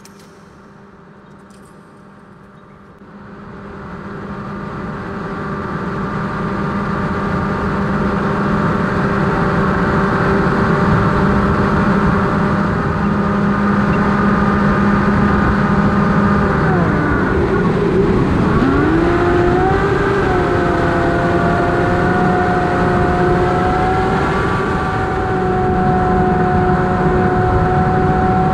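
Brushless electric motor and propeller of an AtomRC Dolphin FPV plane, a steady whine and buzz. About three seconds in it swells over several seconds to a loud, even level. About two-thirds of the way through its pitch dips and swoops back up, then holds steady again.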